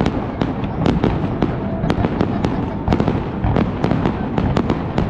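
Aerial fireworks display: a rapid, irregular run of sharp bangs, several a second, over a continuous low rumble.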